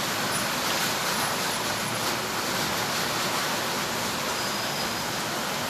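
Steady, even hiss of background noise with no other clear event.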